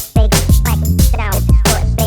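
Hip hop music: a steady drum beat over a deep bass line with a melodic line on top.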